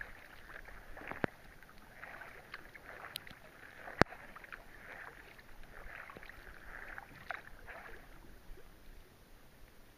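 Kayak paddle strokes: the paddle blades swishing and splashing through the water every second or so, with rain falling on the lake, easing off near the end. A sharp click just after a second in, and a louder one about four seconds in.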